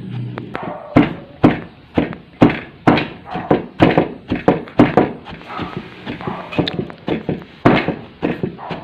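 Long wooden pestle pounding a damp, crumbly bait mix in a wooden mortar: repeated dull thuds, about two a second, starting about a second in.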